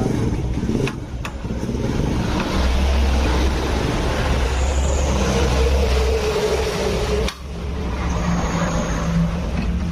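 A motor vehicle engine running steadily with a low rumble, loudest in the middle, cutting off abruptly about seven seconds in, then a quieter steady hum.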